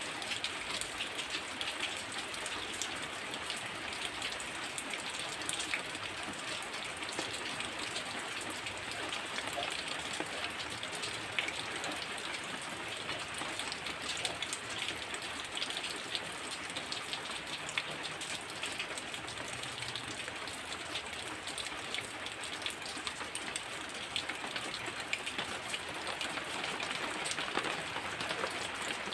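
Heavy rain falling steadily, with a dense patter of individual drops striking a surface.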